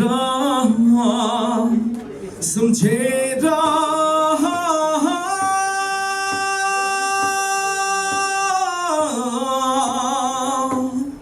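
A man singing a Nepali song unaccompanied, drawing the line out in melismatic runs and holding one long note with vibrato for about four seconds in the middle.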